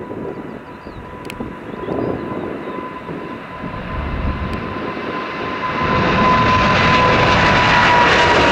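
Jet airliner's engines at takeoff power as it approaches, the noise swelling and getting markedly louder about six seconds in, with a steady high whine running through it.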